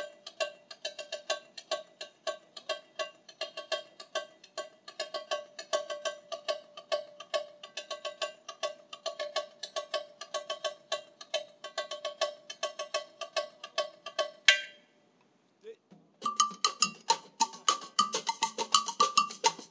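Tamborim, a small tight-headed samba frame drum, struck with a stick in a steady, quick rhythm, about four ringing strokes a second, stopping with a final hit about three-quarters of the way through. After a short pause a different, higher-pitched percussion pattern starts near the end.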